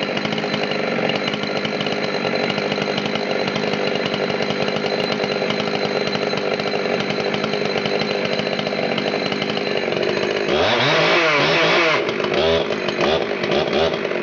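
Husqvarna 272 XP chainsaw's 72 cc two-stroke engine running at a steady speed, then revved up and down in several quick throttle blips from about ten seconds in.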